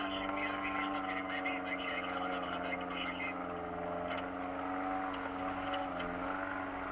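Kia Sportage engine running at low, steady revs, heard from inside the cabin as the vehicle crawls along a dirt track. Its pitch sags slightly about four seconds in and again near the end.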